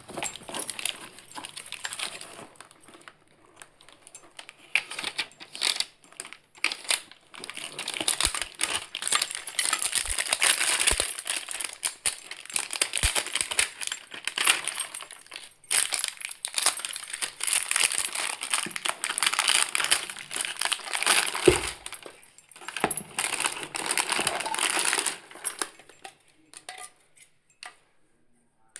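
Parcel packaging being torn open and handled, a dense crinkling and rustling with many small clicks and crackles, in short pauses. It thins out to a few scattered clicks near the end.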